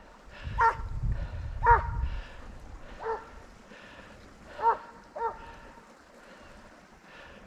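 Hunting hound baying on the trail: five single calls spread over about five seconds, the loudest about two seconds in. Wind rumbles on the microphone during the first two seconds.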